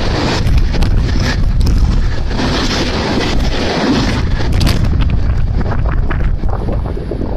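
Freight train of empty stake flat wagons passing close: a heavy rumble with a rapid clatter of wheels over rail joints, and wind buffeting the microphone. The clatter thins out about five seconds in as the last wagon goes by.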